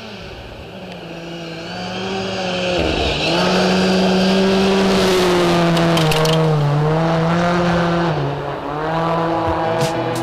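Rally car's engine at high revs, growing louder as it approaches on gravel; its note dips and climbs again several times through the bend. It passes close, with gravel spraying from the tyres.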